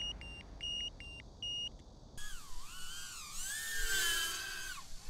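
A crashed FPV racing quadcopter beeping, a run of short high beeps at about three a second, typical of a lost-model beeper or the ESCs' beacon. From about two seconds in it gives way to a warbling tone that slides up and down.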